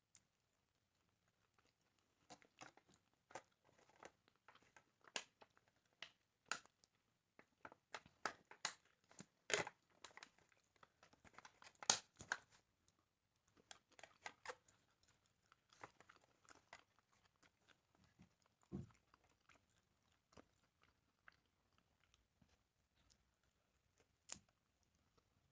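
Close-up chewing and biting of grilled chicken: quiet, irregular crunches and wet clicks, with the loudest bites a little before and just after the middle.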